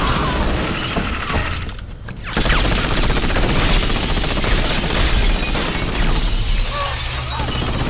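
Film sound effects of ice and glass shattering, as an armoured suit bursts through a frozen glass skylight, with dense crashing debris. The noise falls away briefly about two seconds in, then comes back with a deep rumble underneath.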